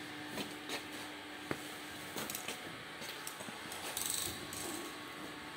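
Quiet workshop background noise: scattered light clicks and knocks over a faint steady hum that stops about two seconds in.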